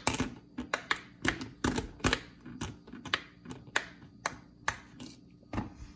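Bubbles of a silicone pop-it fidget toy being pressed in, a quick, uneven run of small pops, roughly three or four a second.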